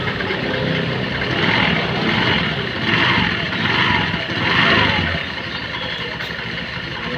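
Honda Beat scooter's single-cylinder engine running with the CVT cover off, blipped several times in the first five seconds and then settling to a steady idle as the belt and pulleys spin. This is the test after the CVT repair, and the squeak the mechanic likens to a pinched mouse is, in his words, 100% gone.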